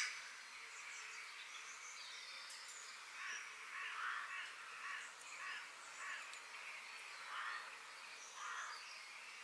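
Forest birds calling over a steady hiss: a run of harsh, rasping calls about once a second, with thin high chirps between them. A sharp click sounds right at the start.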